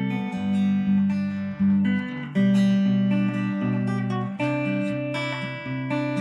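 Background music: an acoustic guitar playing chords, changing every second or so.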